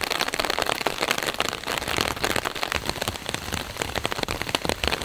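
Steady rain pattering on a clear plastic umbrella held overhead: a dense stream of close drop ticks.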